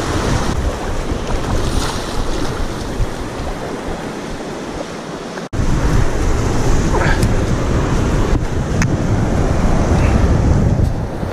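Surf washing up on a sandy beach, with wind buffeting the microphone as a heavy low rumble. The sound cuts out for an instant about five and a half seconds in.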